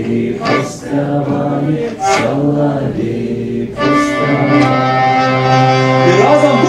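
A man singing a Belarusian song over the steady drone of a hurdy-gurdy. About four seconds in the voice drops out and the hurdy-gurdy carries on alone with sustained drone and melody notes.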